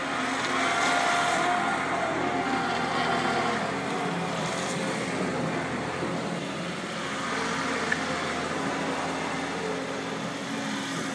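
A car engine running steadily, a continuous hum with no revving.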